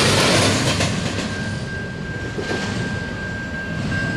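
Tail end of a double-stack intermodal freight train rolling past, its wheels rattling over the rails. The noise drops about a second in as the last well car goes by, and a steady high-pitched tone runs on after that.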